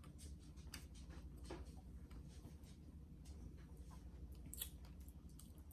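Faint, scattered soft clicks and light rustling over a low steady hum, close to near silence.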